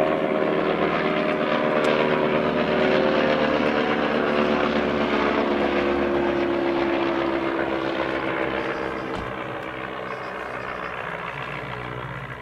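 Sopwith Triplane's Clerget 9B rotary engine running as the biplane-era fighter flies past, its pitch falling steadily as it goes by and the sound fading from about eight seconds in.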